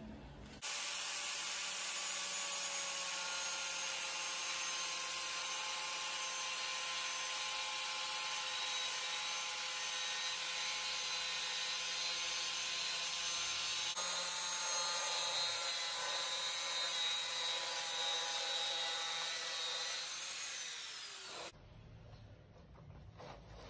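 Small corded angle grinder with a cutting disc running and cutting through a soft plastic honeycomb mesh grille sheet: a steady high motor whine with the hiss of the disc in the plastic. It starts suddenly and winds down near the end.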